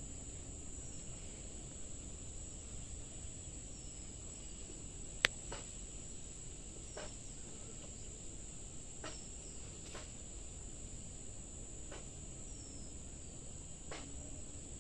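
Steady high-pitched drone of insects, with a few scattered clicks and snaps among the plants, one sharp click about five seconds in.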